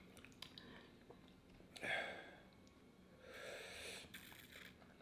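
Faint sniffing and breathing out hard from a person, twice: a short sniff about two seconds in and a longer breath later. It is the sniffling of someone whose mouth and nose are burning from scorpion-pepper hot sauce.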